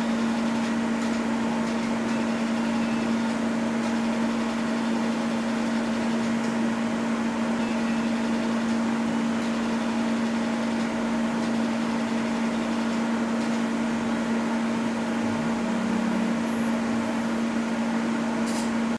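Laser welding workstation running with a steady low hum, with a few faint scattered ticks.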